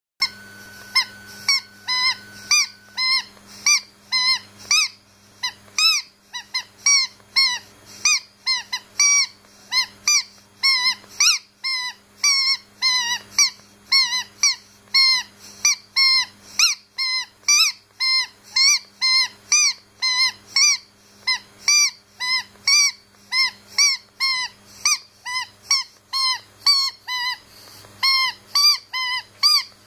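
A squeaky dog toy squeezed over and over, about two squeaks a second, each a short squeal that rises and falls in pitch.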